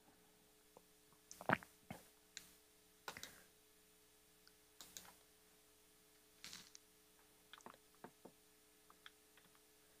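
Faint, scattered keystrokes on a laptop keyboard, a few quick clicks at a time with pauses between the groups.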